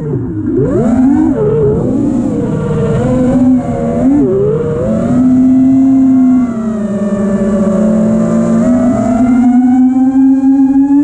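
FPV racing quadcopter's brushless motors and propellers (Ethix motors, Ethix S3 props, 6S) whining, heard from the camera on board. The pitch swings up and down with the throttle through dives and flips, then climbs steadily and holds near the end.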